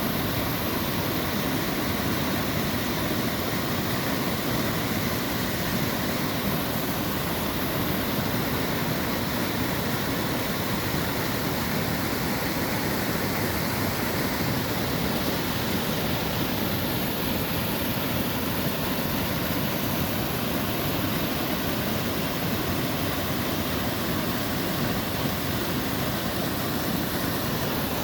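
Steady rush of river water pouring over a low dam, an unbroken even roar.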